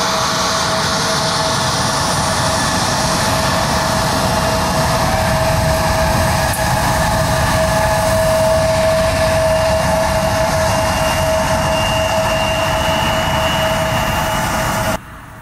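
Airliner turbofan engines running with a steady whine over a broad rush of noise. The sound drops away sharply near the end.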